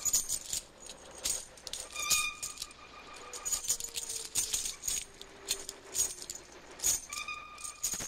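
Metal chains rattling and clanking in an irregular jangle, a spooky sound effect. A faint tone slides slowly down in pitch through the middle.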